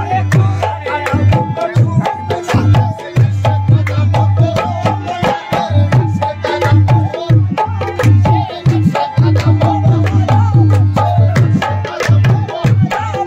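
Qawwali music: fast, dense tabla drumming with a strong bass drum stroke in repeating phrases, under a wavering melodic line.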